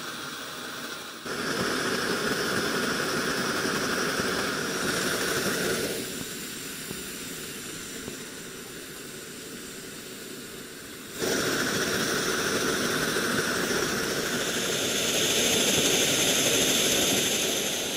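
Coleman 533 Sportster white-gas (petrol) stove burner running with a steady rushing hiss. The hiss steps louder about a second in, drops for several seconds in the middle, then comes back up and grows louder near the end as the control valve is turned up and down.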